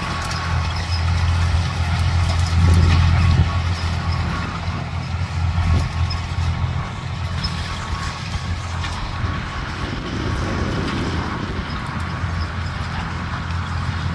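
Fiat 450 tractor's diesel engine running steadily as it pulls a hay rake across the field, louder about three seconds in and then fading as the tractor moves away.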